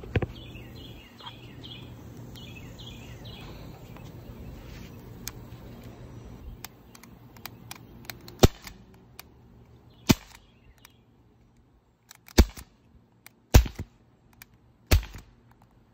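Daisy Power Line Model 45 CO2 .177 pellet pistol firing five sharp shots at a paper target, each one to two seconds apart, in the second half. A single sharp click comes right at the start.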